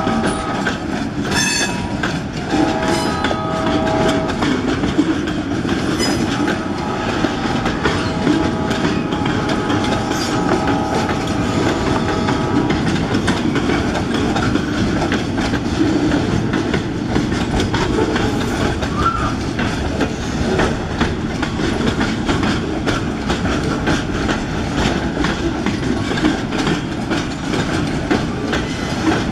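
Loaded pulpwood cars of a freight train rolling past: a steady rumble with the clickety-clack of wheels over rail joints. Steady high squealing from the wheels sounds through roughly the first twelve seconds, then fades.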